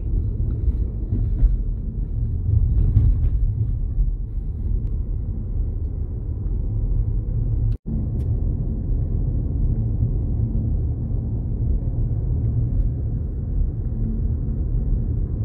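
Car driving along a narrow country road, heard from inside: a steady low rumble of road and engine noise, which drops out for a moment about eight seconds in.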